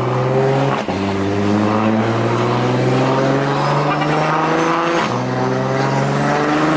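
Single-turbo BMW N54 inline-six accelerating through the gears, its pitch climbing steadily and dropping back at shifts about a second in and about five seconds in. It pulls cleanly without misfiring on fresh spark plugs.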